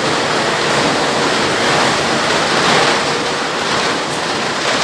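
Three-colour printing and die-cutting line for cardboard pizza boxes running at full speed: a loud, steady machine noise with no distinct beat.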